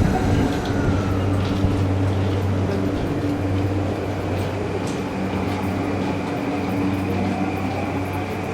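Yamanote line electric commuter train pulling out of the platform. There is a steady low electrical hum, and a whine from the traction motors comes in about three seconds in as the train gathers speed.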